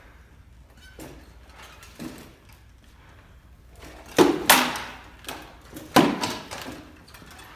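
Sword blows landing on shields and armour during an armoured sparring bout: two sharp strikes in quick succession about four seconds in, a lighter one, then another sharp strike near six seconds, each with a brief ringing from the shield.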